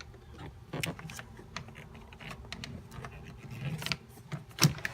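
Cabin air filter being worked into its plastic housing: rubbing and scraping with scattered light clicks, and one sharp knock near the end.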